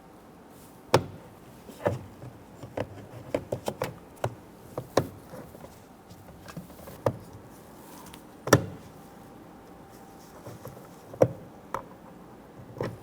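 Scattered sharp plastic clicks and knocks as a replacement rear interior door handle is pushed back into a Honda Ridgeline's door panel, its tabs seating under the trim; the loudest knocks come about a second in, past the middle, and near the end.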